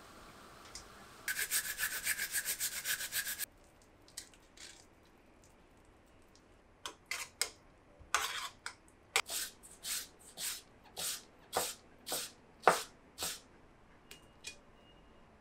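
Rhythmic scraping strokes, about two a second, in the second half, from a utensil working the grated-daikon sauce in a small stainless saucepan. Earlier, a rapid run of crackling ticks lasts about two seconds and cuts off suddenly.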